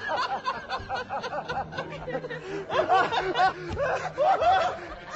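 A man laughing hard: a rapid run of repeated laughing bursts, growing louder about halfway through.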